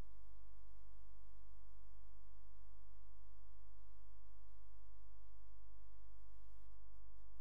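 Steady low electrical hum with a stack of faint steady tones above it, unchanging throughout; no sound of the bicycle or the street.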